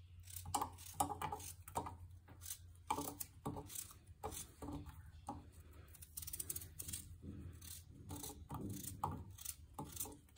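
Kitchen knife cutting peeled raw potatoes held in the hand into small cubes: an irregular run of crisp cuts, with the pieces dropping into a bowl.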